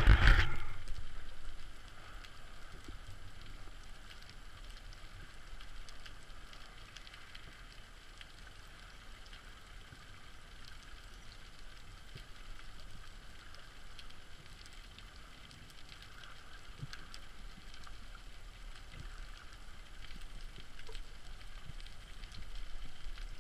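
Underwater ambience heard through an action camera's housing: a steady faint crackling made of many tiny clicks. A louder rush of water noise fills the first second or so.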